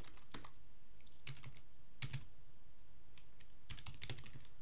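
Computer keyboard being typed on, its keys clicking in short irregular clusters as a terminal command is entered.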